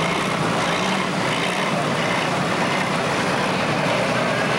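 International Harvester 86-series super stock pulling tractor's turbocharged diesel engine running flat out under load, pulling down the track. The sound is loud and steady, with no break.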